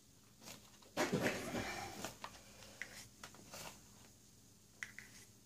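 Quiet handling noises of a small plastic tool and a paint cup worked in wet acrylic paint: a louder rustle about a second in, then a few scattered light clicks and taps.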